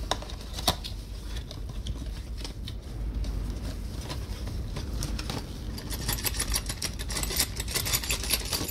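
Cardboard box handled and rustled as an LED work light is worked out of its packaging: a couple of sharp clicks in the first second, then a run of rapid scraping and rustling clicks from about six seconds in.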